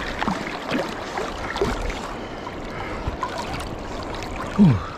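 River water sloshing and swirling around a wading angler's legs and a swimming dog during a river crossing, heard close to the surface, with small splashes throughout. A short low sound falling in pitch comes near the end.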